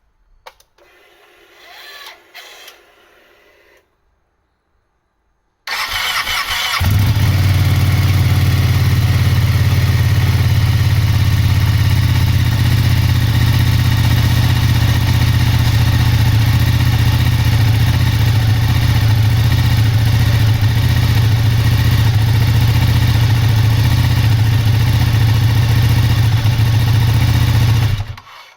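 Ducati 959 Panigale's Superquadro V-twin is cranked on the electric starter and fires after about a second. It then idles steadily for some twenty seconds and is shut off just before the end. A faint whir of a few seconds comes before the start.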